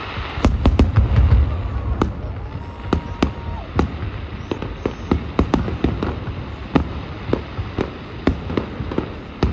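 Aerial fireworks shells bursting: a cluster of deep booms about half a second in, then a steady run of sharp bangs and crackles, several a second.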